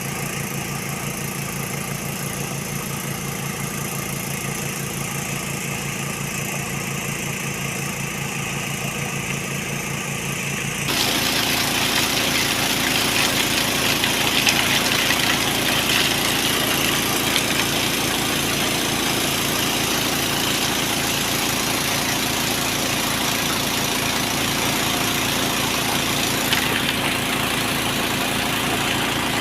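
Small Robin petrol engine running steadily with an even beat. About a third of the way in it abruptly gets louder and a broad hiss joins it.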